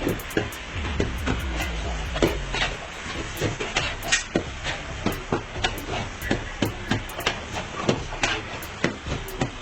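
Repeated quick clanks and knocks, about two or three a second, over a steady sizzling hiss: a metal ladle working food in a hot karahi.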